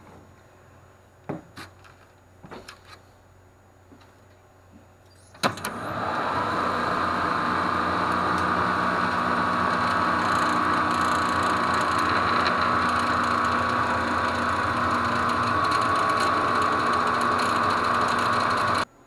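Electric motor of a hydraulic liftgate starting with a clunk about five seconds in and running with a steady whine, then cutting off abruptly just before the end. A few light clicks come before it.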